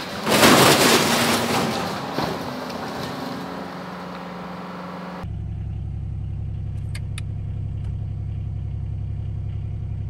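Skid steer working with a grapple, with a loud crashing burst about half a second in that fades over the next few seconds. About five seconds in it gives way to a tractor engine running steadily, heard from inside the cab, with two light clicks.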